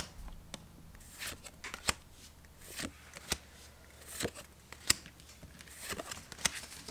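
Pokémon trading cards being flipped one at a time off a hand-held stack: a run of short swishes and light snaps as each card slides off the next, roughly one a second.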